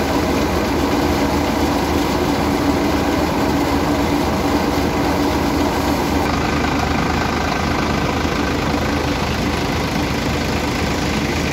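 Sonalika tractor's diesel engine running steadily under load, driving a threshing machine whose spinning drum adds to a loud, constant mechanical din.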